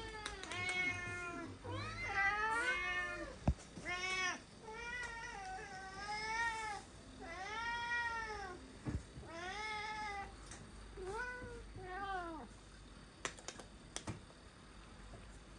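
A domestic cat meowing over and over, about ten meows a second or so apart, begging for the dry cat food being handed out; the meows stop about twelve seconds in, followed by a few light clicks.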